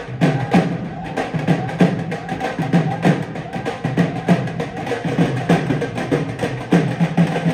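Dhol drums played by several drummers, a fast steady beat of sharp stick strokes.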